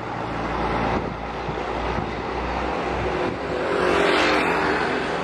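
Low diesel rumble of a large Hino coach pulling into a bus terminal. About four seconds in, a motor scooter passes close by, its engine and tyre noise swelling to the loudest point and then fading.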